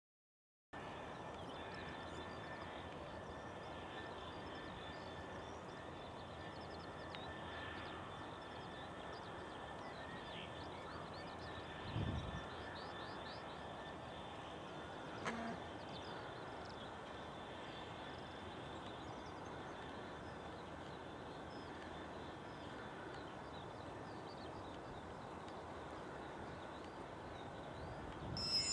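Birds singing over a faint, steady outdoor background. A dull thump comes about twelve seconds in and a sharp click a few seconds later. Near the end an approaching train starts to grow louder.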